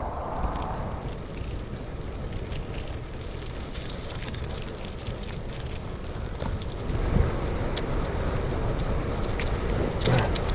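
Wind rumbling on the microphone of a moving bicycle, with steady crackling from the tyres rolling over a rough trail surface, growing a little louder about two-thirds of the way through.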